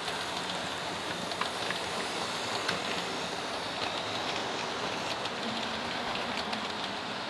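HO scale model train, diesel locomotives hauling a string of gondola cars, rolling past close by: a steady whir of wheels on the track with scattered light clicks.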